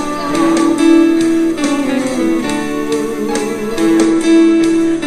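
Music: a guitar-led tune with held, sliding steel-guitar notes over a steady beat.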